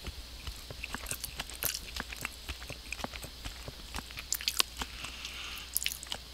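A person chewing a mouthful of caramel turtle trifle close to the microphone, with many quick, irregular wet clicks and smacks of the mouth.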